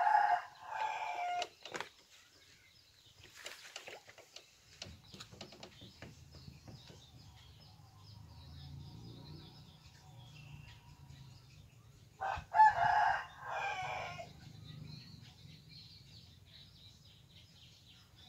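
A rooster crowing twice, once right at the start and again about twelve seconds later, each crow lasting a second or two. A faint low hum runs underneath from about five seconds in.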